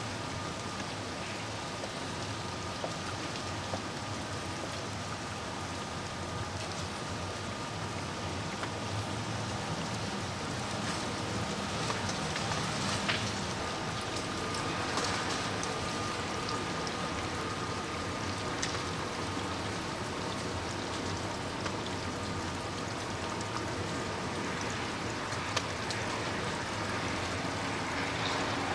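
Freezing rain falling steadily on surfaces, with scattered sharp ticks of drops and ice.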